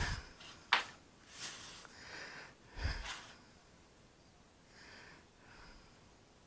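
Small spatula scraping and smearing putty thickened with Cab-O-Sil on cardboard, in short faint strokes, with a sharp click about a second in and a couple of soft thumps.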